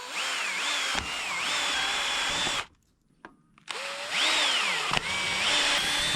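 Drill spinning a 1 1/8-inch hole saw to cut washers out of plastic, in two runs with a short pause between. The motor whine rises and falls in pitch as the trigger is eased and squeezed.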